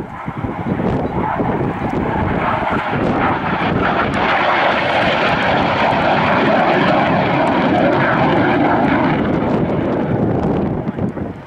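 RAAF BAE Hawk 127 jet trainer's Adour turbofan on a display pass: a loud rushing jet noise that builds a few seconds in, is strongest through the middle and eases off near the end.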